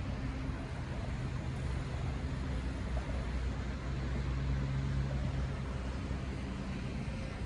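Steady outdoor background noise: a low hum with a broad, even rush over it, of the traffic or machinery kind.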